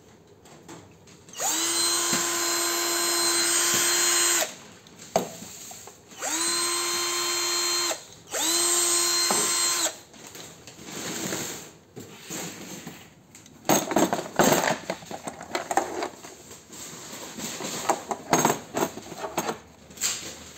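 DeWalt-branded 36V cordless drill running with an empty chuck, triggered three times: a steady whine for about three seconds, then two shorter runs of about two seconds and a second and a half, each spinning up quickly and stopping. For the second half, irregular clicks and knocks as the drill and its battery pack are handled in the plastic carry case.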